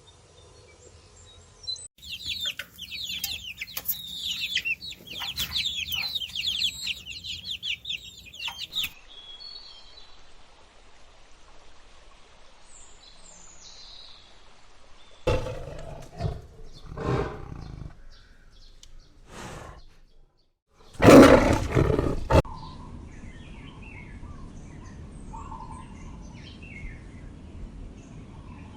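Animal sounds from several spliced clips: a few seconds of dense, high chirping from a flock of birds, then scattered calls, and near the middle a short, loud roar-like call, with faint bird chirps afterwards.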